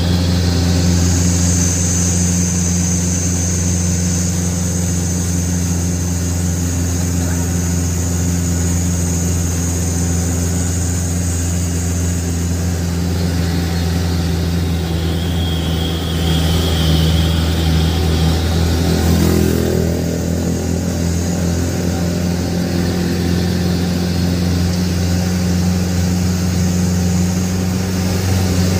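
Truck engine running steadily under way, heard from inside the cab as a continuous low hum. Its note rises briefly about two-thirds of the way through.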